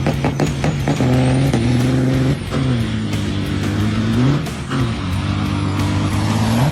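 A motor vehicle's engine running, its pitch dipping and then rising again about halfway through, with music underneath.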